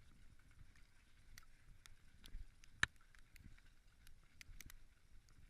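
Pack horses moving along, with faint, irregular clicks and knocks from hooves and tack and one sharper click about three seconds in.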